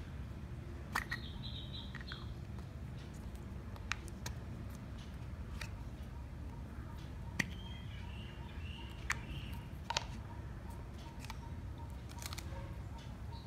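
Scattered light clicks and taps, as of small miniature toy kitchen pieces being handled and set down, with two short runs of high chirping, one just after the start and one in the middle.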